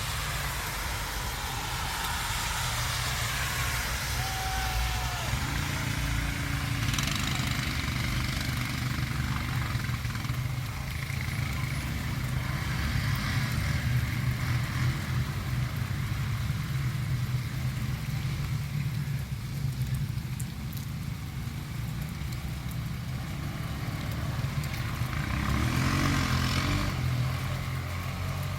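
A motor vehicle running steadily, with a continuous low engine and road rumble.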